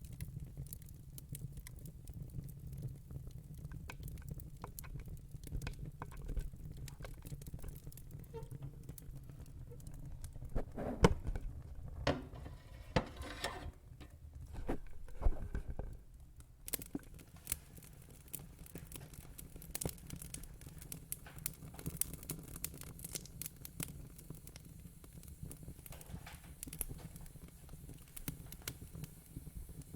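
Fire crackling: scattered sharp pops and snaps over a low steady rumble, busier and louder for a few seconds in the middle.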